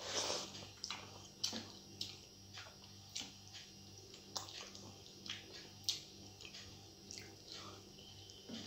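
Close-up mouth sounds of a person eating rice and curry by hand: a noisy rustle as a handful goes into the mouth at the start, then chewing with a string of short wet clicks and lip smacks.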